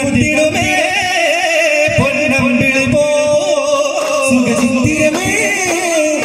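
Daf muttu: a male voice singing over the rhythmic strikes of several daf frame drums. The drum strikes thin out for a moment about a second in, then pick up again.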